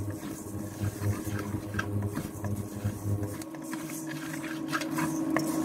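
A wooden spatula stirs dry moong dal being roasted in a stainless steel wok, with the grains scraping and rattling against the metal. Under it runs a low pulsing hum that stops about three and a half seconds in.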